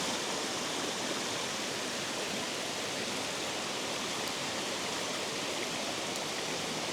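Steady rush of water pouring over a spillway, an even, unbroken hiss.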